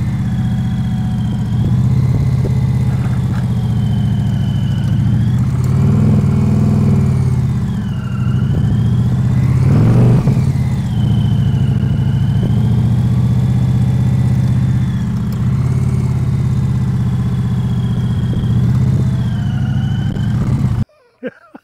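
2023 Indian Pursuit Elite's V-twin engine running at low speed as the bike is ridden through slow, tight turns. The engine note rises and falls with the throttle, swelling twice around the middle, and cuts off abruptly near the end.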